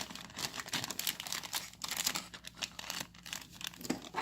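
Plastic packaging of a toy slime kit crinkling and tearing as it is worked open by hand, a fast irregular crackle that is hard to open.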